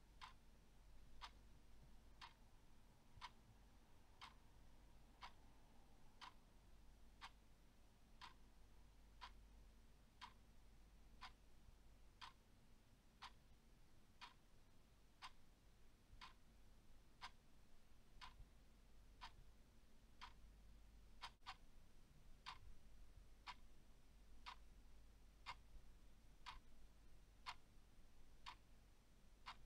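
A clock ticking steadily and evenly, faint and unaccompanied.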